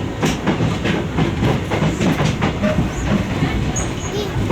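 Kintetsu electric train running slowly through the station, its wheels clacking repeatedly over rail joints and points above a steady low rumble.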